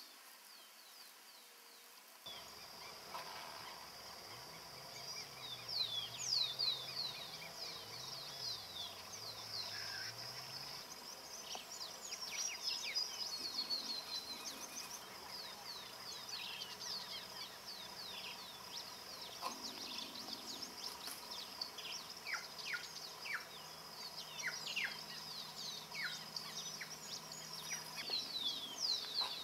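Wild birds calling in woodland: many short, quick downward-slurred notes, over a steady high-pitched insect drone. The calls begin about two seconds in.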